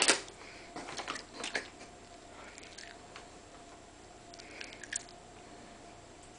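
Clear plastic bag crinkling in short bursts as a cat sitting inside it moves, loudest at the start, with a cluster about a second in and fainter rustles later.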